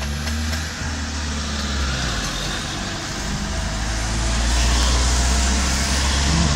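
Car engine running with a steady low drone, heard from inside the cabin, growing somewhat louder.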